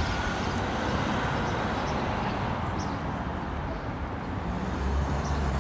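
Steady city street traffic noise, with a deeper low rumble swelling near the end and a few faint short high chirps.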